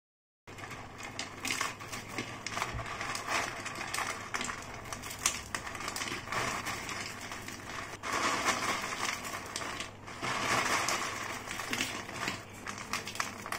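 Crisp deep-fried kara sev strands (besan and rice flour) being snapped and crushed by hand into short pieces: a dense run of small crackling snaps, busiest about eight to eleven seconds in.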